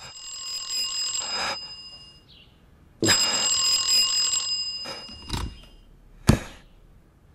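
Old desk telephone bell ringing twice, each ring about a second and a half long with a pause between. Then come two short knocks, the second sharp and loud, as the receiver is picked up.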